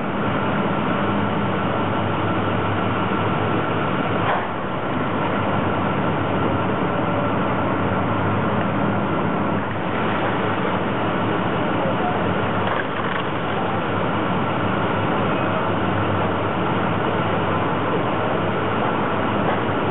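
Heavy diesel machinery running steadily at a fire scene's demolition: a constant low engine hum with a steady higher whine over it, and a few faint knocks.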